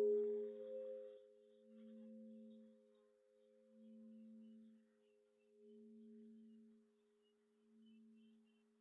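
A struck bell ringing out and fading. The bright overtones die away within the first second, leaving a faint low hum that swells and fades slowly, about every two seconds.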